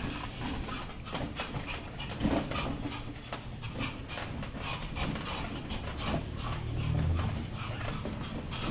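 Belgian Malinois moving about on a tiled floor, its claws tapping the tiles in many light clicks, with a brief low hum about seven seconds in.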